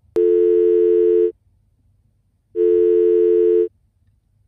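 Telephone ringback tone heard by the caller while a call rings out: a steady low two-note tone sounding twice, each about a second long, after a short click as the call connects.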